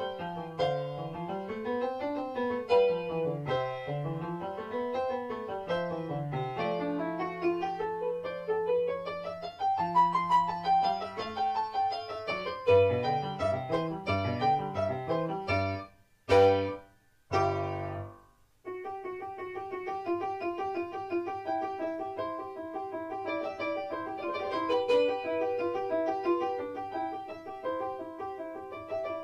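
Background piano music: rippling runs of notes rising and falling, then a short pause about two-thirds through, broken by two brief loud chords, before steadier repeated notes resume.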